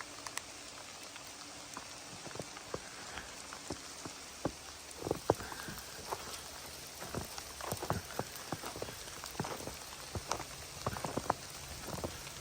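Rain pattering on a surface: scattered, irregular drop ticks over a steady hiss, growing busier about halfway through.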